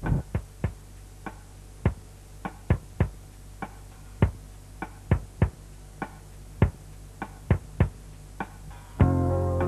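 Coir rope-making charkha running: a low steady hum under irregular sharp clicks and knocks, about two a second. Music comes in near the end.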